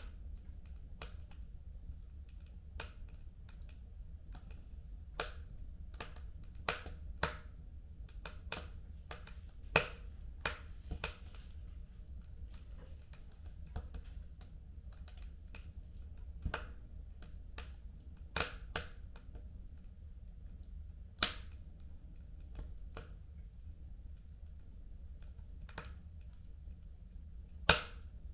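Fire crackling in a fireplace: irregular sharp pops and snaps, a few of them much louder, over a low steady rumble.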